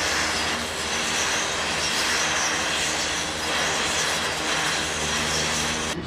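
Oxy-fuel torch flame hissing steadily as it heats a gear.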